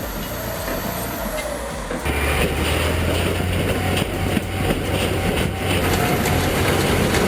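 Bulldozer's diesel engine running under load, with crunching and clanking metal as it crushes a car. A steady low engine hum grows louder about two seconds in, with a few sharp knocks after that.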